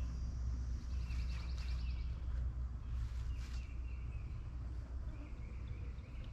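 Outdoor background: a steady low rumble with birds chirping in short trills twice.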